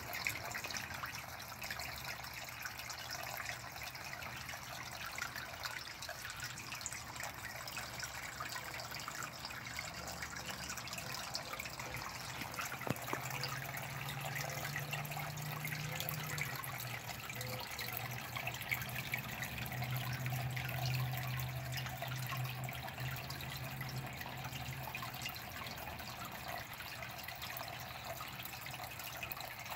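Water running and trickling steadily in a garden fish pond. A low hum comes in for a while past the middle.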